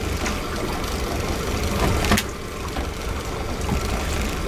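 Honda 90 four-stroke outboard motor idling with a steady low rumble, and a single sharp knock about two seconds in.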